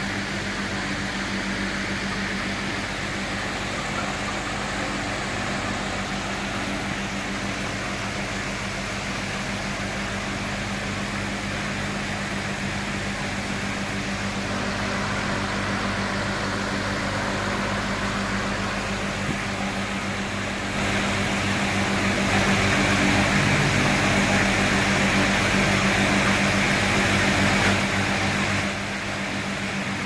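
Large caged circulation fans in a poultry shed running: a steady electric motor hum under a rush of moving air, louder for several seconds about two-thirds of the way through.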